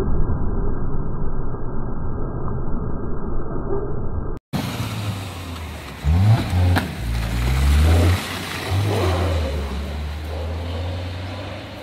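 Dull traffic noise, then after an abrupt cut a car engine revs up in several quick rising bursts about halfway through, settling into a steady run near the end.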